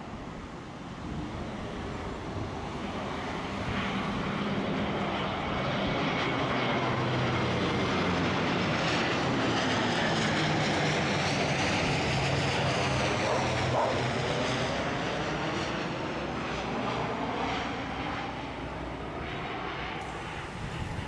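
A twin-turboprop airliner on final approach passes low overhead, its propellers and engines humming. The sound builds over the first few seconds, is loudest around the middle as the plane passes, then eases off slightly.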